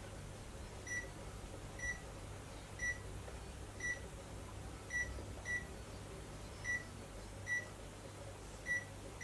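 Panasonic SD-ZX2522 bread maker's touch control panel beeping as its button is pressed repeatedly: about nine short, high beeps, roughly one a second, each press stepping the program number on toward menu 14.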